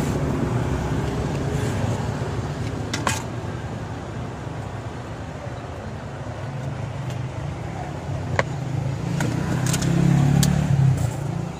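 Street traffic: a motor vehicle's engine runs steadily nearby and swells louder about nine to eleven seconds in. A few sharp clicks sound over it.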